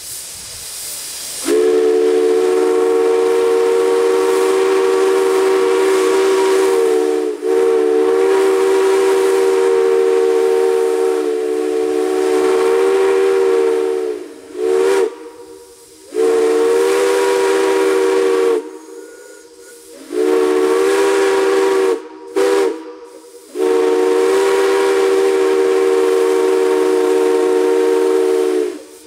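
Steam whistle sounding a chord of several notes at once, blown in long blasts with two short toots between them, after a second or so of hissing steam.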